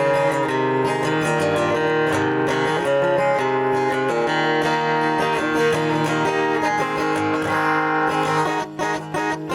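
Live acoustic country music: an instrumental break between verses with steady strummed guitar and no singing. The playing thins out briefly about a second before the end.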